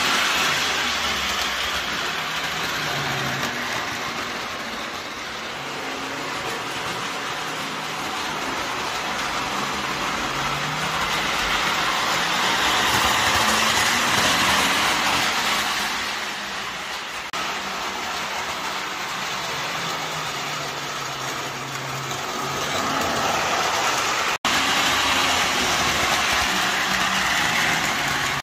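Model trains running on the layout's track, a steady rattling rush of wheels and small motors that swells and fades as the trains come past close and move away. It drops out for an instant near the end.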